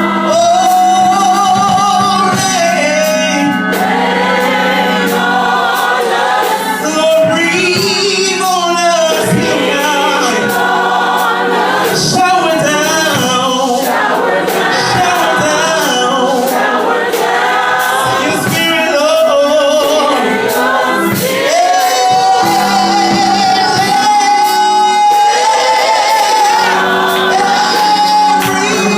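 Gospel choir singing, with long held notes that bend in pitch, over a steady low sustained tone.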